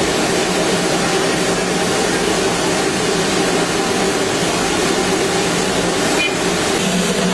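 Darjeeling Himalayan Railway steam locomotive standing with steam hissing steadily and loudly.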